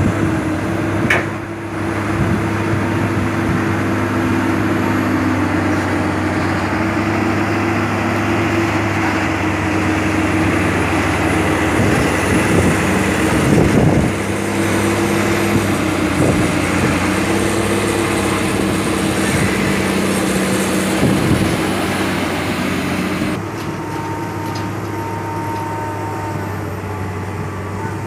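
Heavy diesel engines of a loaded dump truck and a hydraulic excavator running in a steady drone, with a few louder knocks. About 23 seconds in it gives way to a quieter, steady engine drone from an excavator digging.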